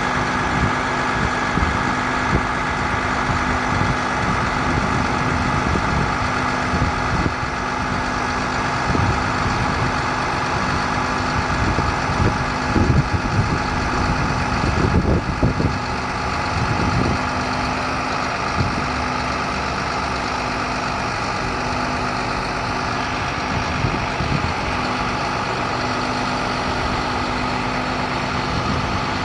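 A medium-duty International 4300 truck's diesel engine idling steadily, with a few irregular knocks and clunks about halfway through.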